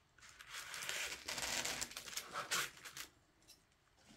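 Styrofoam block being pierced and bored out with the points of scissors, a rough crunching rub that lasts about three seconds.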